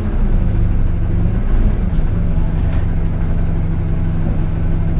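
A single-deck bus's engine running, heard from inside the passenger saloon as a steady low drone. A few light clicks or rattles come around the middle.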